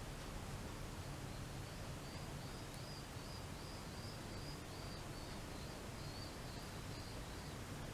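A faint run of about a dozen short, high chirps, evenly spaced at roughly two a second, from a small unseen animal, over steady background hiss and hum.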